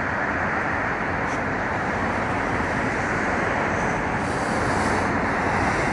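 Steady, even vehicle noise with no sharp sounds.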